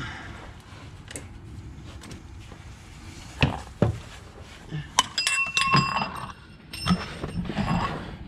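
Metal hand tools clinking and knocking against each other and the car's underside. Two sharp knocks come about three and a half seconds in, then a run of clinks from about five seconds on, some of them ringing briefly.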